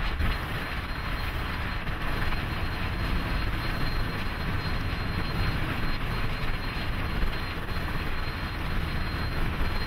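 Steady rumbling rush of Union Pacific 844, a 4-8-4 steam locomotive, passing close at speed: its driving wheels and side rods running over the rail.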